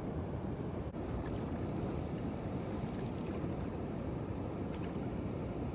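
Steady low rush of surf on the beach at an estuary mouth, with no distinct events.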